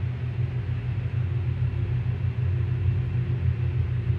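Ice machine running in its ice-making cycle, a steady low hum, with no sign of the strange noise it had been making: it is running normally.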